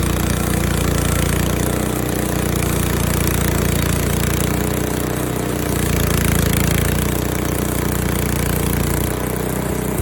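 Frontier OS23 portable bandsaw mill running steadily, its gas engine at speed as the band blade saws through an apple log; a little quieter near the end.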